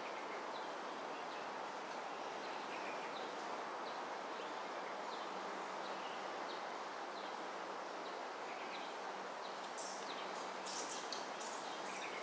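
Steady outdoor background noise with faint, short bird chirps scattered throughout. Near the end comes a quick cluster of sharp clicks and crackles.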